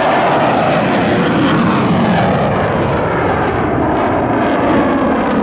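Loud, steady jet noise from an F-22 Raptor's two turbofan engines at high power as the fighter takes off and pulls up into a steep climb.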